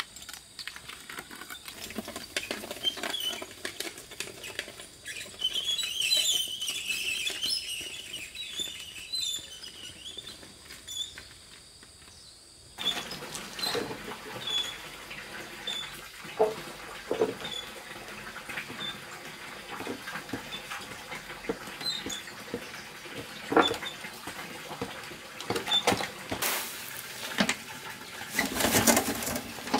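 Metal wheelbarrow being hauled through undergrowth and then pushed over concrete, with rustling, knocks and rattles and a small high chirp about once a second. Near the end the barrow is tipped and its load of soil pours out with a rushing hiss.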